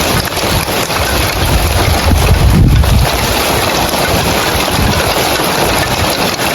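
Heavy rain falling steadily on roof tiles, a dense even hiss, with a low rumble swelling briefly about two and a half seconds in.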